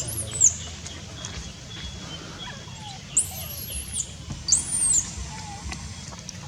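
Baby monkey crying with three shrill, arching screams that rise and fall in pitch. The second, about three seconds in, is the longest. These are the cries of a hungry infant.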